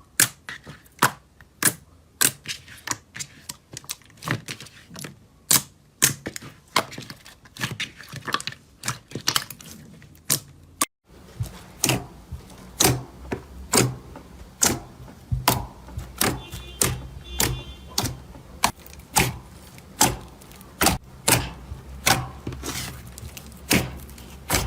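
Slime being pressed and worked by hand, giving a string of sharp clicking pops, roughly one to two a second. About eleven seconds in there is a brief break, and the pops carry on over a low steady background hum.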